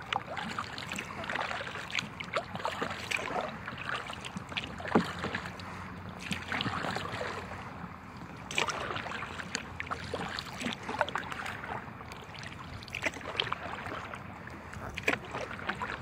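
Paddling an inflatable kayak on calm water: irregular paddle splashes and drips, with water lapping against the hull.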